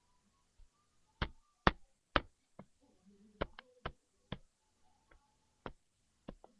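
A baby's hands knocking on a hard surface close to the microphone: about ten sharp, irregular knocks and taps, the loudest in the first two seconds.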